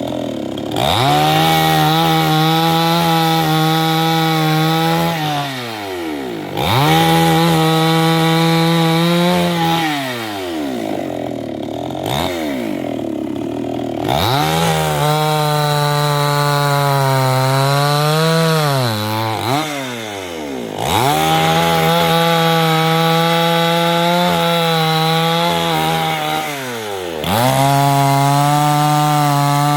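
Chainsaw revved up to a steady high pitch and held there for a few seconds, then let down, its pitch sliding away; this happens five times in a row with short lulls between.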